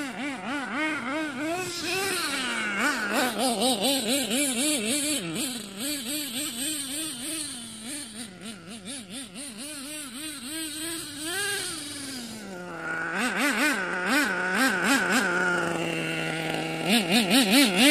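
Nitro RC monster truck's small two-stroke glow engine running, its pitch swinging up and down several times a second under quick throttle blips. It drops to a lower, steadier idle about 12 seconds in, with a few blips, and revs up again near the end.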